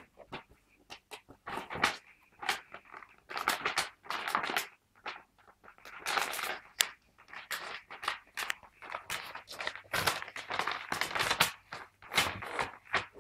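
Paper gift bag rustling and crinkling in irregular bursts as cats paw at it and push their heads inside.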